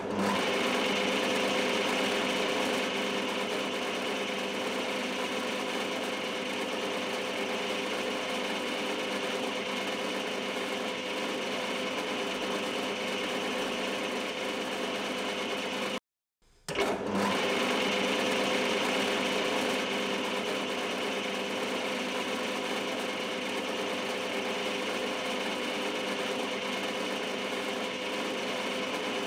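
Metal lathe running steadily with a whine, its chuck spinning while a twist drill bores into the part held in it. The sound cuts out for about half a second around halfway, then the lathe runs on unchanged.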